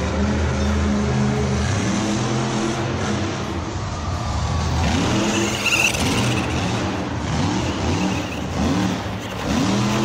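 Engine-like motor sound: a steady low hum for the first few seconds, then quick repeated revs rising and falling in pitch, about one a second, through the second half.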